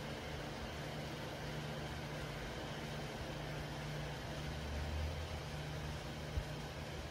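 Low steady hum over an even background hiss, swelling slightly about five seconds in, with one short dull thump near the end.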